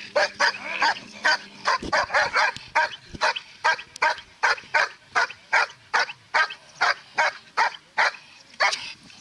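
German shepherd barking steadily and rhythmically, about three barks a second, at a helper holding a bite sleeve: a bark-and-hold in protection training.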